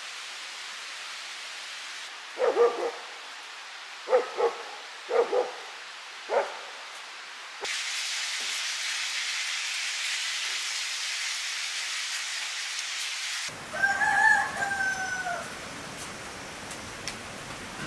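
A dog barking about six times in short single barks over a steady hiss. The hiss then grows louder, and about two-thirds of the way in comes one drawn-out animal call of about a second and a half that falls slightly at the end.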